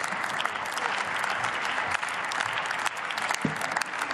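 Applause from the members of a parliamentary chamber: many people clapping at once in a dense, steady patter.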